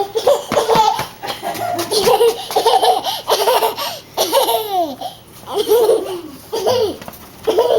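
A young child laughing in a string of short bursts, many falling in pitch.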